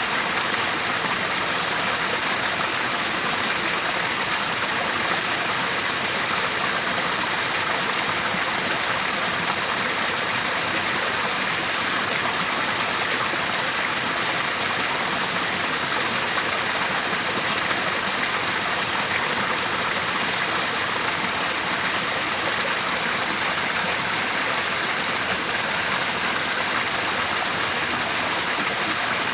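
Waterfall: falling water rushing steadily and unchanging, a continuous even hiss.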